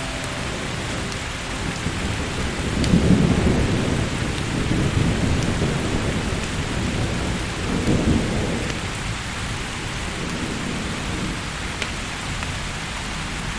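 Steady rain falling, with rolling thunder that swells up and dies away twice, about three seconds in and again about eight seconds in.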